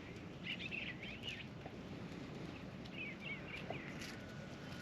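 Small birds chirping in two spells of quick notes, one starting about half a second in and another around three seconds in, over a faint steady outdoor hiss.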